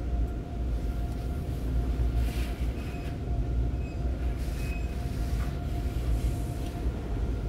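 Tunnel car wash heard from inside the car's cabin: a steady low rumble, with water and foam spraying onto the windshield and body, rising in three surges of hiss.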